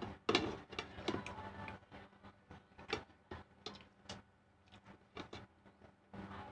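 Eating sounds over a plate of pig's feet: chewing and lip smacks, with irregular clicks and taps of a knife against the plate.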